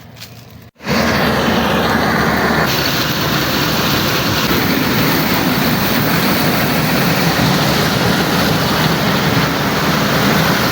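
FM World 102 hp combine harvester running steadily while harvesting maize: a loud, even machine noise that starts abruptly about a second in.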